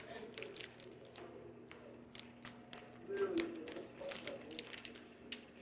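Kitchen clatter: utensils and dishes clicking and knocking in quick, irregular taps, with faint voices murmuring in the background.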